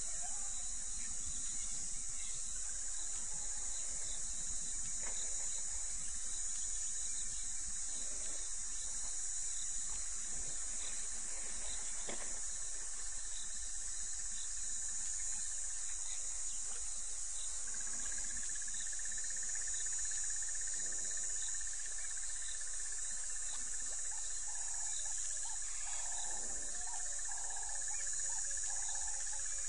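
Steady high-pitched chorus of insects in the bush. About two-thirds of the way through, a second steady thin whistle-like tone joins in. Near the end comes a run of short, lower calls, about one a second.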